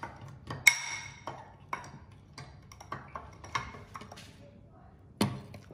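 Metal spoon clinking against a glass bowl while stirring a thick flour, salt and water paint mixture: a string of irregular taps, some with a short glassy ring. The sharpest tap comes just under a second in, and another strong one near the end.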